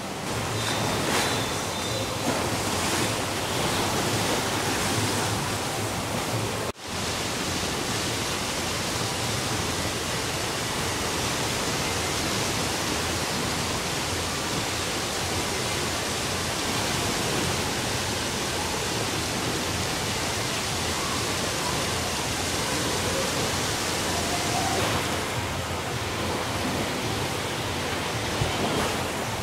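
Steady rush of splashing water: slide outlets pouring into a pool, then the churning waves of a wave pool after a brief dropout about seven seconds in.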